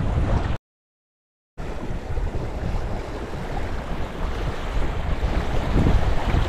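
Wind buffeting the microphone over water washing along the hull of a small plastic kayak moving down a river. The sound cuts out completely for about a second near the start.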